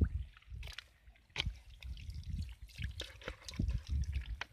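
Plastic bowl scooping through shallow muddy water, with water dripping and small splashes at uneven intervals.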